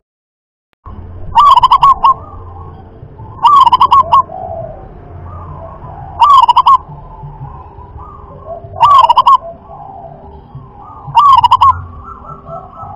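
Zebra dove (perkutut) singing its rhythmic cooing song. There are five short, loud phrases of quick repeated coos, one every two to three seconds, with faint chirping of other birds between them. The sound drops out for about the first second.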